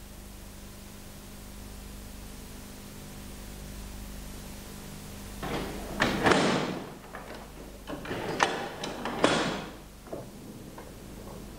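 A faint steady hum, then two bouts of loud mechanical clunking and scraping with a few sharp knocks, starting about five and a half seconds in and dying away about four seconds later.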